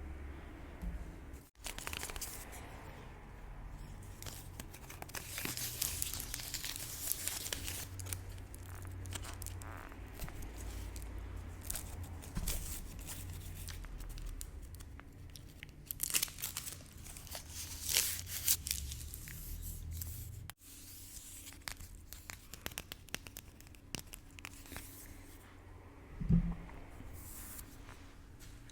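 Paper crinkling and tearing close to the microphone in irregular crackly bursts, with a short thump near the end.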